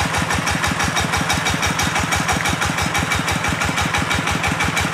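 An engine running steadily at an even, rapid chug, about ten beats a second.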